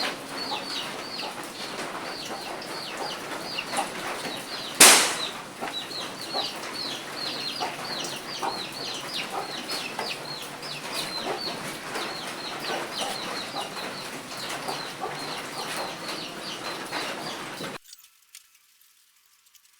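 Rapid high chirping of birds, several short falling chirps a second, with a single loud knock about five seconds in; the sound cuts off abruptly near the end.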